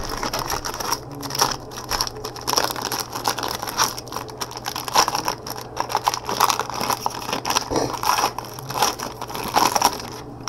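Crinkling and crackling of a foil trading-card pack wrapper being handled and opened, irregular and continuous, over a low steady hum.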